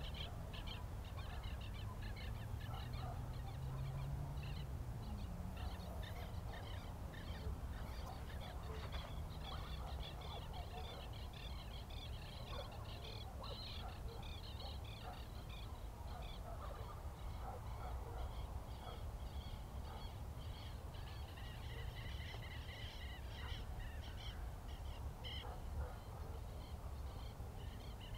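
A dense chorus of many short bird calls, over a steady low rumble.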